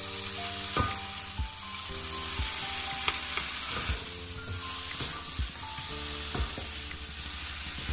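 Noodles sizzling as they fry in soy and chilli sauce in a pan, a steady hiss. Background music with a simple stepping melody and a regular beat plays over it.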